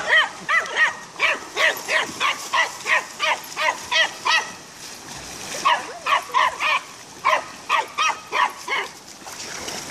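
Dog barking rapidly and repeatedly, about three barks a second, in two runs with a pause of about a second near the middle.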